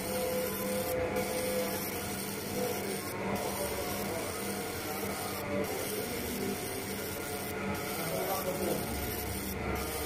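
Laser marking machine engraving aluminium bird leg rings: a steady hiss over a low hum, the high part of the hiss dropping out briefly about every two seconds.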